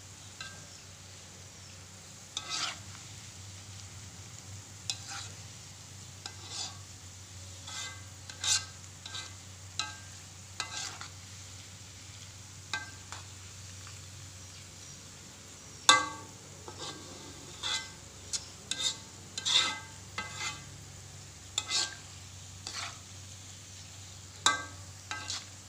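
Sliced shallots deep-frying in oil in a wok with a steady faint sizzle, while a metal spatula stirs them, knocking and scraping against the wok at irregular moments, the loudest knock about two-thirds of the way through. The shallots are nearly done, turning golden.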